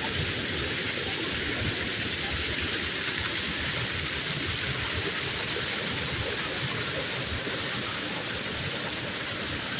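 Small mountain waterfall rushing: a steady, even noise of falling water that starts and stops abruptly at edit cuts.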